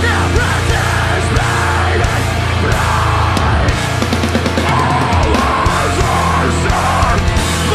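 Deathcore band playing live: heavily distorted, low-tuned guitars over fast, loud drumming, dense and unbroken.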